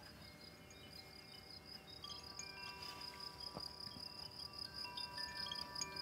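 Faint ambient sound design: a steady, high, fast-pulsing insect-like trill, with soft sustained chime-like tones coming in one after another from about two seconds in and slowly growing louder.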